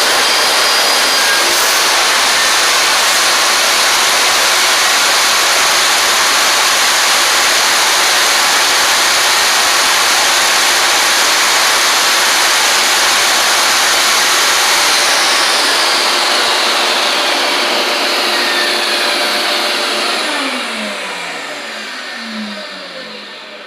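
Table saw with a Milwaukee 24-tooth ripping blade, and a dust collector, running with a loud, steady whir. About 15 seconds in they are switched off and wind down, the pitch falling and the sound fading away near the end.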